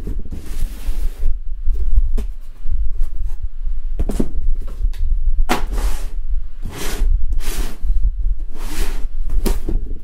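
Cardboard packaging handled: a black cardboard box slid out of its sleeve and moved about on a table, giving several short scraping, rustling rushes of cardboard on cardboard.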